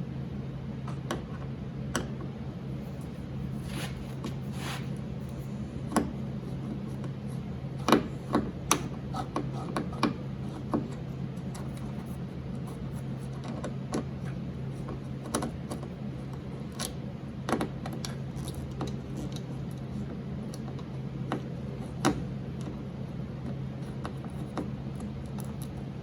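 Scattered sharp clicks and taps of small metal parts and tools being handled while a car's door mirror and its mounting screws are worked loose, over a steady low hum.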